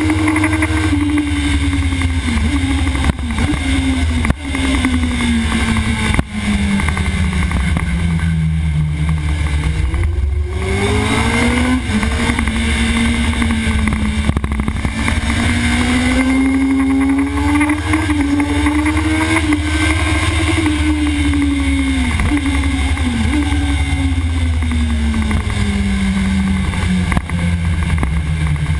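Sport motorcycle engine heard from an onboard camera, pulling at high revs. Its pitch falls steadily under braking, bottoms out about ten seconds in, then climbs again on acceleration before falling once more near the end. Heavy wind buffeting rumbles underneath, and there are a few short breaks in the sound early on.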